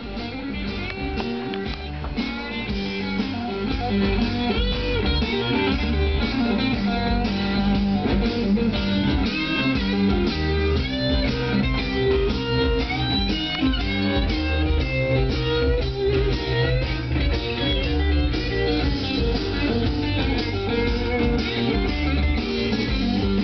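Blues-style electric guitar music with a steady beat, playing through the speakers of a restored Kenwood KR-3130 stereo receiver.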